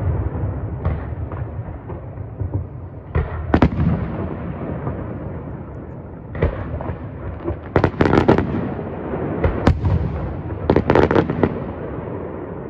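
Fireworks display: aerial shells bursting with sharp bangs over a continuous low rumble. The bangs come singly and in quick clusters, the densest about two-thirds of the way through and again near the end.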